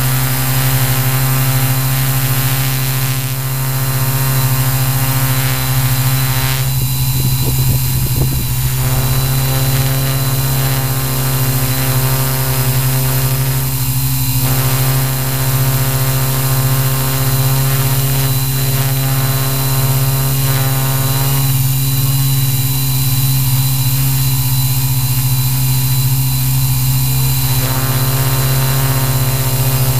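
A Q800 quadcopter's electric motors and propellers running at a steady hover, heard from its own onboard camera: a loud, even buzz with many stacked tones.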